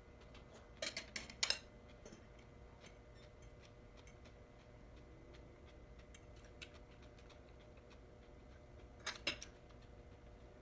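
Utensils clinking against a dish while eating: a quick cluster of clicks about a second in, another near the end, and faint light taps in between.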